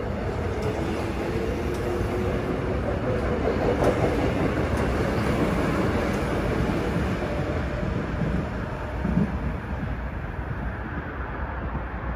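Seoul Subway Line 4 electric train pulling out of the station and running past the platform, its wheels and running gear making a steady rolling rumble on the rails with a faint motor hum in the first half, easing off slightly in the last few seconds.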